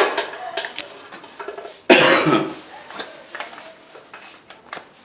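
A person coughs once, loudly, about two seconds in, among scattered light clicks and knocks of handling.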